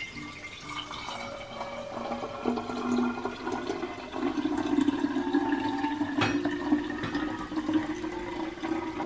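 Milk pouring in a steady stream from a measuring jug into a glass milk bottle, splashing as the bottle fills. A sharp click about six seconds in.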